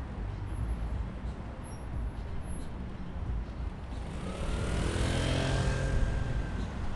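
Steady low city street traffic rumble, with a motor vehicle driving past about four seconds in, its engine noise swelling to a peak and fading away near the end.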